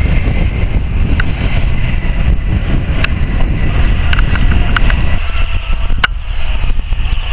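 Turbofan engines of a KLM Embraer regional jet at takeoff thrust: a loud, steady rumble that thins about five seconds in. Several sharp clicks are scattered through it.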